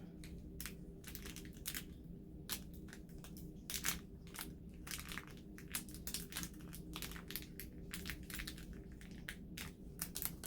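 Small plastic diamond-painting drills and their plastic bags being handled: irregular light clicks and crinkly rustles, with a faint steady hum underneath.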